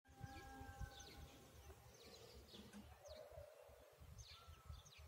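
Faint bird chirps: short, quick downward-sweeping notes, scattered every second or so, over a low rumble of wind or handling.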